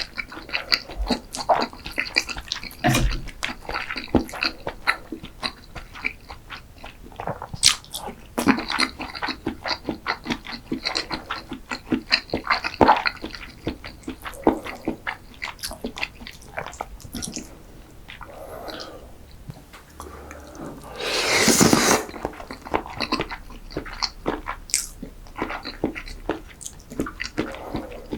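Close-miked eating sounds: steady chewing with wet mouth clicks and smacks. About three-quarters of the way through, a louder rushing mouth sound lasts about a second.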